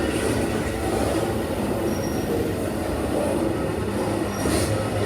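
Long Amtrak Auto Train rolling past: a steady rumble of railcar wheels on the rails, with a brief high hiss about four and a half seconds in.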